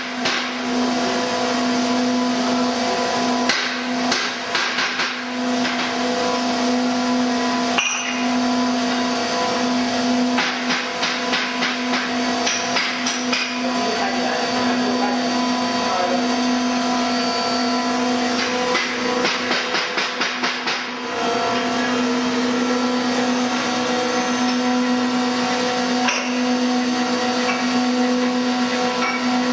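High-speed spindle of a CNC engraving and milling machine running with a steady whine, broken by stretches of rapid clicking chatter from the cutter a few times.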